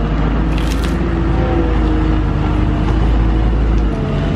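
Diesel engines of a skid-steer loader and a compact excavator running together while working wood chips: a loud, steady deep rumble with a slightly wavering engine note. There is a short hiss under a second in, and the deepest rumble eases near the end.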